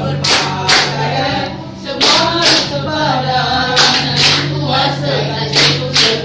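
A group of young men and women singing together, clapping in unison in pairs of two quick claps about every two seconds.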